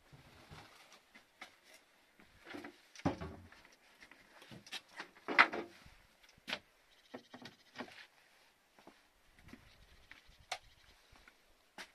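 Scattered knocks, clunks and rustles of sacks and plastic buckets being handled, with louder clunks about three and five seconds in.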